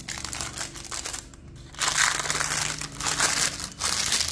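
Parchment paper crinkling and rustling as a baked loaf is lifted out of its pan by the paper and set down on a cutting board. The crinkling gets louder about two seconds in.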